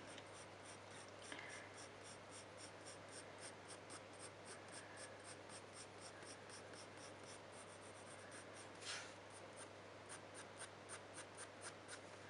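Faint, rapid scratching of a Caran d'Ache Pablo coloured pencil lightly shading over hot-pressed watercolour paper, in even back-and-forth strokes several times a second, with one slightly louder stroke about nine seconds in.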